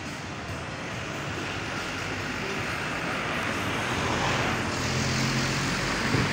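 A road vehicle passing by: its noise swells steadily over several seconds, with a low engine hum coming in and peaking near the end.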